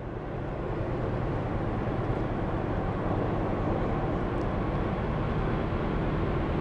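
Steady low rumble of an approaching freight train's diesel locomotives, not yet in sight.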